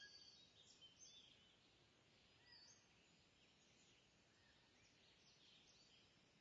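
Very faint birdsong: scattered short chirps and whistles over a quiet steady hiss.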